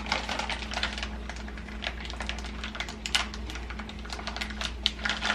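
A saucepan simmering on a gas stove burner, with quick irregular crackling and popping, over a steady low hum.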